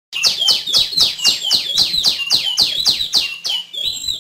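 Female tiểu my songbird singing a fast run of repeated high whistled notes, each sweeping downward, about four a second. The song starts abruptly just after the start.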